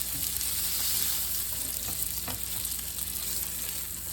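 Cinnamon-sugar-coated pork chops sizzling in a frying pan with the stove switched off, a steady hiss with a couple of faint ticks.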